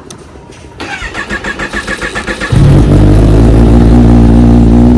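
Kawasaki Ninja ZX-10R inline-four on a cold start. The electric starter whirs and cranks in quick pulses for about a second and a half, then the engine catches about two and a half seconds in and settles into a loud, steady idle.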